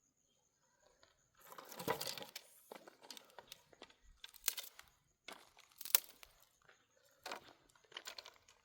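A run of sharp cracks, crunches and crinkling handling noises, starting about a second and a half in, with the loudest snaps near two, four and a half and six seconds in.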